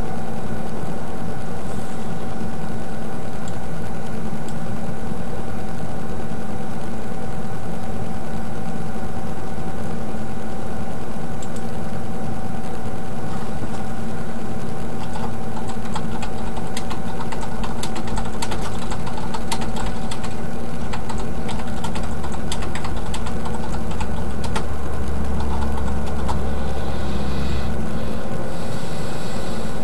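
Steady mechanical running hum and clatter of an 8 mm film projector, with scattered sharp clicks through the middle stretch.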